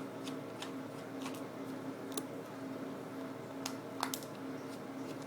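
Scattered small clicks and ticks of screws and plastic parts being handled while a PC webcam's casing is taken apart, over a steady low hum.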